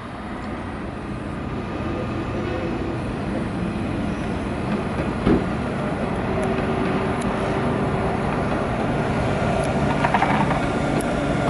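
Tram running on its rails, a steady rumble that grows slowly louder, with one sharp knock about five seconds in and a rougher, louder stretch near the end.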